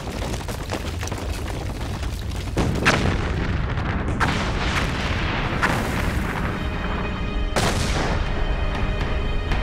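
Explosive volcanic eruption: a deep, continuous rumble broken by several sharp blasts, the loudest about three seconds in. A music score with held chords joins in near the end.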